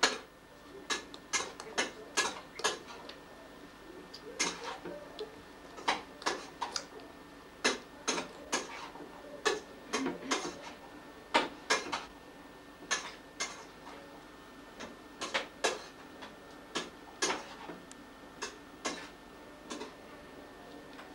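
Newborn Dogo Argentino puppies suckling: a string of short, wet smacking clicks at irregular spacing, over a faint steady hum.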